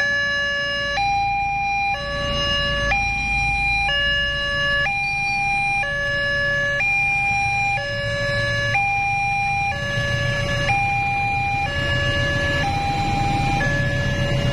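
Railway level-crossing electronic warning alarm sounding two alternating tones, switching about once a second. Under it, the rumble of a passing KAI CC206 diesel locomotive grows in the second half.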